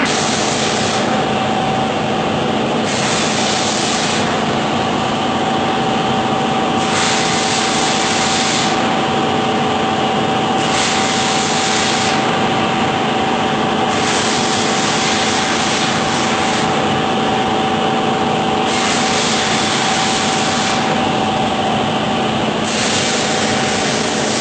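CNC fibre laser cutting machine running with a steady hum. A high gas hiss switches on for one to two seconds at a time, roughly every four seconds, as the assist gas blows during each cut.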